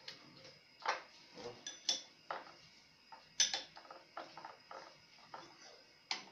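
Irregular metallic clicks and knocks as a boring head is worked onto a milling machine's spindle by hand. The sharpest knock comes about three and a half seconds in.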